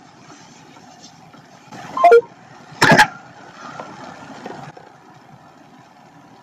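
Steady hiss of a recorded phone line, broken by two short loud sounds about two and three seconds in, the second the louder.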